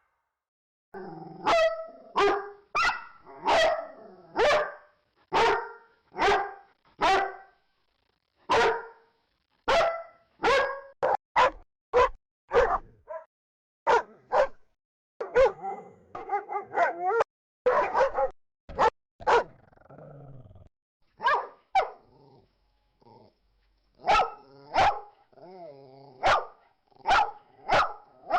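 A dog barking repeatedly, short sharp barks in irregular runs, sometimes several a second, broken by a few stretches of low growling. The first bark comes about a second in.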